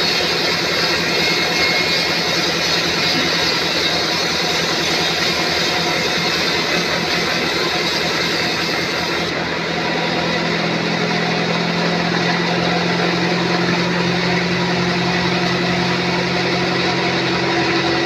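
Sawmill band saw running and cutting through a teak log, a loud, steady mechanical sawing noise. About halfway through, the sound changes abruptly: the hiss thins out and a low steady hum comes up.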